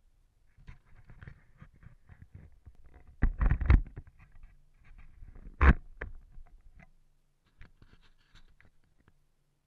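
Handling noise on a GoPro camera: fingers scraping and knocking on its housing, with a cluster of loud knocks about three and a half seconds in and one sharp knock near six seconds.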